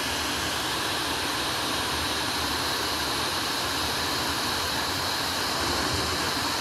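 FM radio hissing between stations: steady, even static as the tuner dial is turned slowly across an empty stretch of the FM band.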